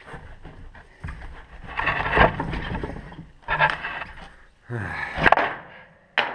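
Studded rubber snowmobile track being pulled around its rear skid by hand, scraping and clattering over the slide rails in several separate heavy pulls.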